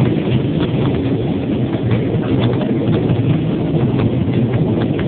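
An amusement park ride running: a steady low rumble with many light clicks and knocks.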